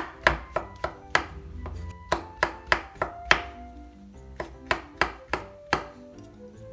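Chef's knife slicing shiitake mushrooms on a wooden cutting board: quick knife strikes on the board, about three a second, pausing about three and a half seconds in before another run of strikes.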